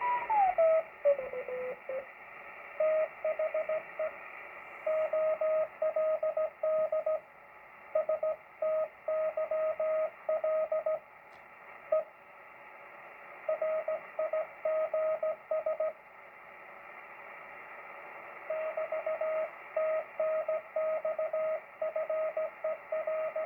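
Morse code (CW) signal from a Yaesu FT-101 shortwave receiver: a single beat tone keyed on and off in dots and dashes over steady band hiss. The tone falls in pitch during the first two seconds as it is tuned in. The keying then drops out for a second or more several times, as a weak signal fading in and out does.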